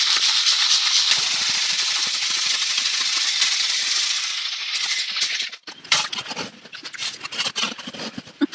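Gravel and sand rattling in a round wire-mesh fossicking sieve being shaken steadily to sift out stones while looking for topaz. The rattling stops about five and a half seconds in, followed by scattered knocks and scrapes of stones and digging tools.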